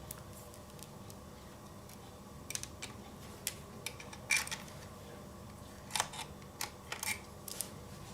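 Light, scattered clicks and taps of a small screwdriver and screws against the laptop's chassis as the SSD is screwed down, about eight in all, mostly in the second half.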